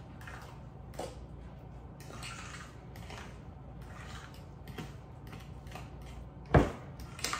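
A fork stirring and mashing egg-yolk and yogurt filling in a bowl: soft scrapes about once a second, then a sharp clink of the fork against the bowl near the end, with a smaller one just after.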